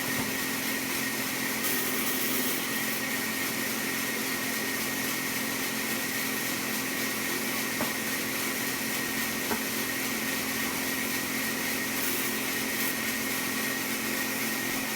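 Power saw cutting wood, running at a steady even level with a constant whine, plus a couple of faint clicks.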